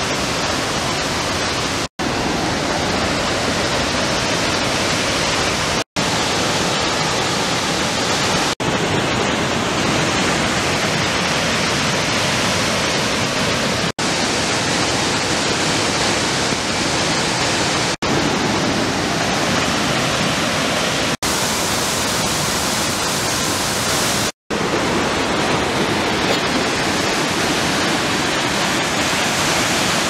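Krka waterfalls' cascades rushing: a loud, steady noise of falling water, broken off for a split second several times where clips are joined.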